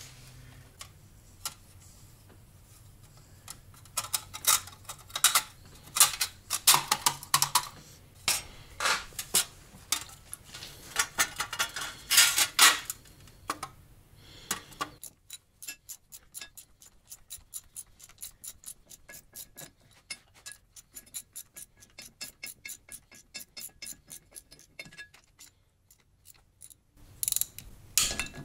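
Ratchet wrench clicking as bolts are run in: scattered clinks and scrapes of tools and parts in the first half, then a long run of quick, even ratchet clicks from about halfway that stops near the end.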